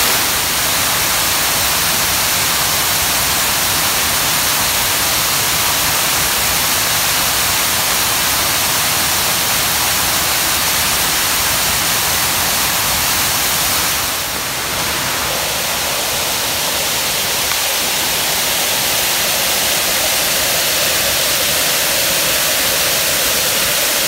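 Small waterfall cascading over rock close to the microphone: a steady, even rushing hiss that dips slightly a little past halfway.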